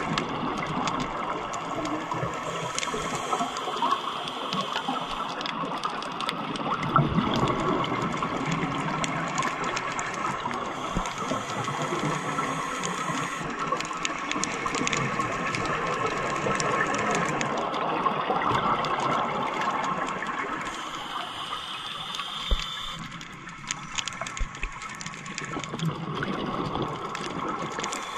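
Underwater sound of scuba divers breathing through their regulators, with exhaled bubbles gushing and hissing and many small clicks throughout. It eases off for a couple of seconds a little past twenty seconds in, then comes back.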